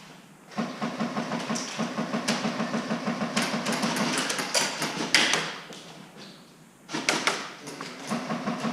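A fast, even rattle of about seven pulses a second, in two runs: the first lasts about four seconds, and the second starts about seven seconds in.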